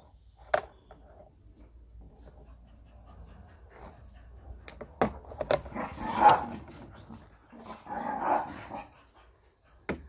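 A dog making noise in two breathy bouts of about a second each, about six and eight seconds in, the first the loudest. A few sharp clicks and knocks come in between.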